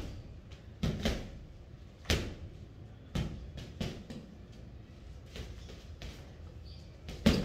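A sawdust-filled Sumbac heavy bag being struck with boxing gloves: about half a dozen dull thuds at uneven intervals, the loudest near the end.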